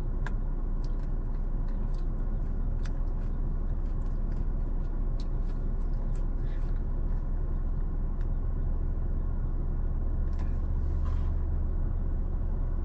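Steady low hum of a parked car's engine idling, heard from inside the cabin, with scattered small clicks and taps over it.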